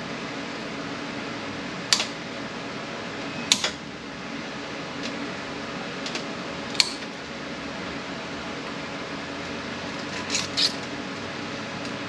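Snap ring pliers working a stubborn snap ring off a transmission shaft: a handful of sharp metal clicks at irregular moments, two close together near the end. The ring is hard to remove because it was installed upside down.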